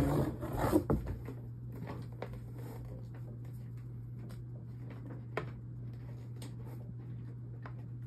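Faint scattered clicks and rustles of things being handled, over a steady low hum, with one sharper click about five seconds in.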